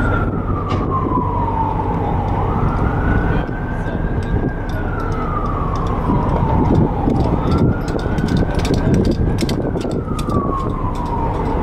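An emergency vehicle's siren wailing: one tone that slowly rises, holds and falls, about three times, over a steady low rumble.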